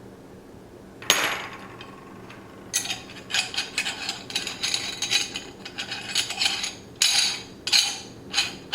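Meat grinder attachment parts knocking and scraping as they are fitted together: one sharp knock about a second in, then a run of irregular clicks and scrapes from about three seconds in as the retaining ring is screwed on and tightened.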